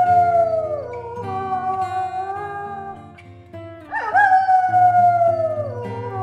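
Wolf howling: a long howl falls in pitch and fades during the first second, a held note follows, and a new howl rises and then slides down from about four seconds in, over background music.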